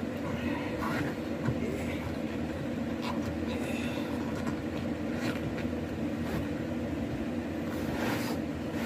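Steady running hum of an electric fan, with a few short handling rustles and clicks over it.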